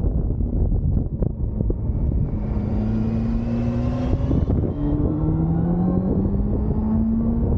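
Honda sport motorcycle's engine pulling under acceleration, its pitch climbing, then dropping about four and a half seconds in at an upshift before climbing again. Heavy wind rush on the helmet-mounted microphone.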